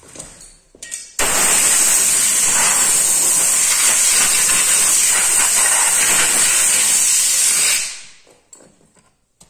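Compressed-air blow gun blowing a steady, loud hiss, starting suddenly about a second in and tailing off near the end: blowing sanding dust off a freshly scuffed wheel arch before epoxy primer.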